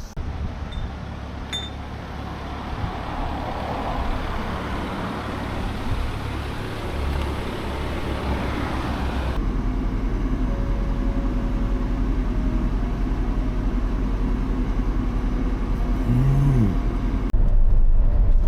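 Vehicle driving on the road: a steady low rumble of engine and road noise, which changes abruptly about nine seconds in and again near the end.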